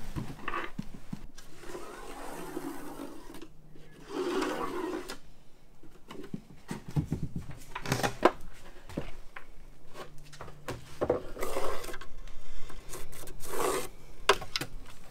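Pencil scratching along a straightedge on wood, marking cut lines, in uneven strokes with scattered light knocks of handling.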